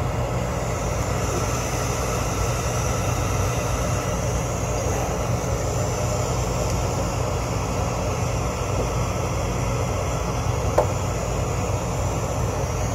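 Steady mechanical hum of a rooftop HVAC unit running, with a single short click near the end.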